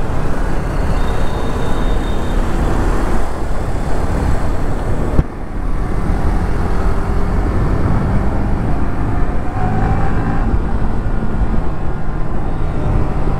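Motorcycle on the move: the engine runs under a steady rush of wind and road noise, with traffic around. The noise dips briefly about five seconds in.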